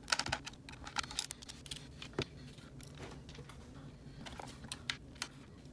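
Scattered light clicks and knocks of a graphics card being handled and turned over on a wooden bench, as its metal-and-plastic cooler shroud and circuit board bump and tap. There are a few clicks in the first second or so, a sharper one about two seconds in, and two more near the end.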